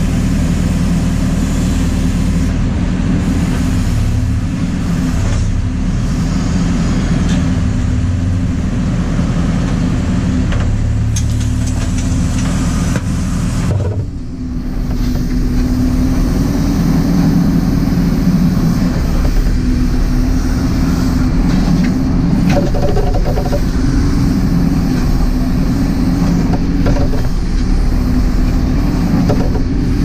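JCB 4CX backhoe loader's diesel engine running under load while the backhoe arm digs and swings, heard from inside the cab. The engine note is steady and dips briefly about halfway through.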